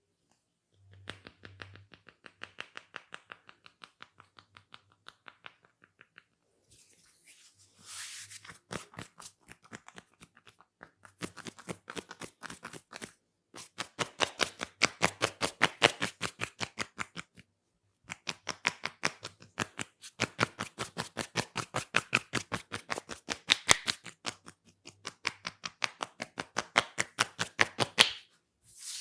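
Hair cracking: fingers working tufts of scalp hair, making runs of rapid crackling clicks, about ten a second. There are short breaks between runs, and the clicks are louder in the second half.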